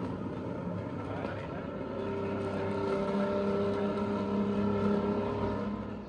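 Classic car engine running at a steady pitch, fading away near the end.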